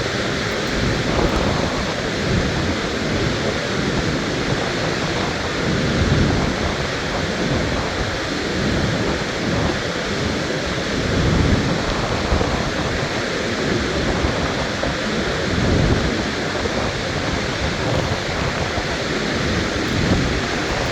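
Augrabies Falls on the Orange River in flood: a loud, steady rush of falling water that swells and eases every few seconds.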